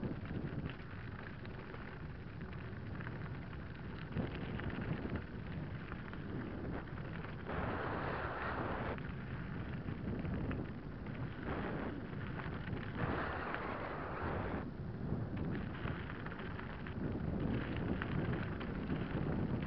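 Mountain bike descending a gravel track: wind rumbling on the camera microphone while the tyres crunch over loose stones and the bike rattles over bumps, with two louder stretches of gravel hiss in the middle.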